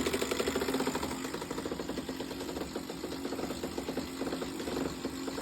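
Sailboat winch running under load to hoist a person up the mast in a bosun's chair, its pawls clicking rapidly and evenly over a steady motor hum.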